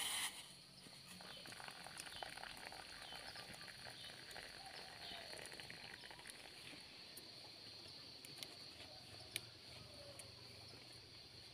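Faint insect chorus: a steady high buzz that holds unbroken, with a few sharp ticks over it.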